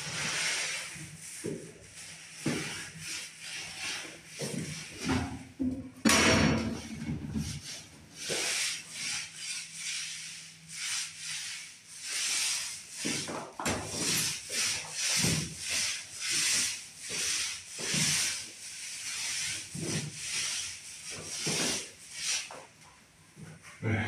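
Paint roller on a long pole worked back and forth across a ceiling with wet paint: a repeated rasping, sticky rub with each stroke. One louder knock or bump about six seconds in.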